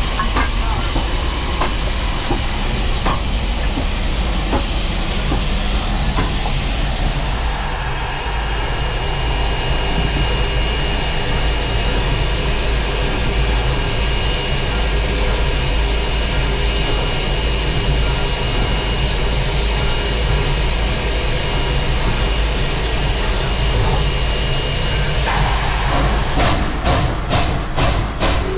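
Baldwin 2-8-2 steam locomotive hissing steam over a steady low rumble; near the end its exhaust starts beating quickly, about four chuffs a second, as it works ahead.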